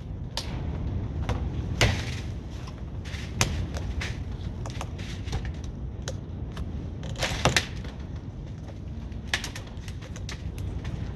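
Hand-tool work on the camper's interior during demolition: irregular knocks and clicks, with louder knocks about two seconds in, three and a half seconds in and a quick double knock about seven and a half seconds in, over a steady low rumble.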